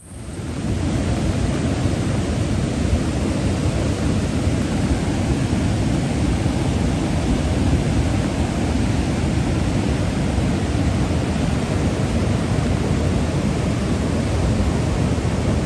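River in full flood, fast muddy water rushing in a loud, steady, deep noise. It fades in over the first second.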